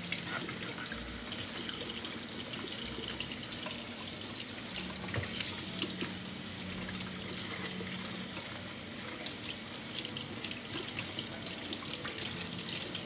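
Kitchen faucet running steadily onto a head of cabbage turned in the hands, water pouring through the leaves and splashing into a stainless steel sink.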